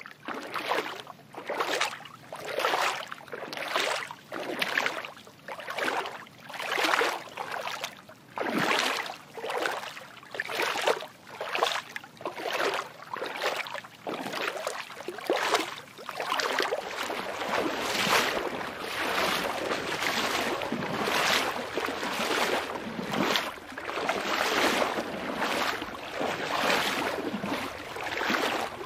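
Water splashing in a regular rhythm, about one swish every three-quarters of a second, as a brown bear wades and paddles through a pond. From about 17 seconds in the splashing becomes denser and more continuous.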